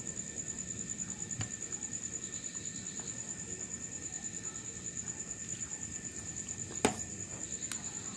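Crickets chirring in a steady, fast-pulsing high trill, with a single sharp knock about seven seconds in and a fainter tap earlier.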